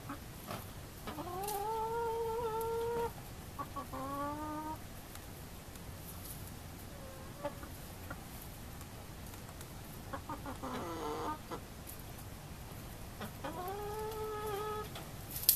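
A flock of California Grey, black and Black Rock chickens calling. There are two long drawn-out calls that rise and then hold, about a second in and near the end, and shorter clucking calls around four and eleven seconds in. A sharp click comes right at the end.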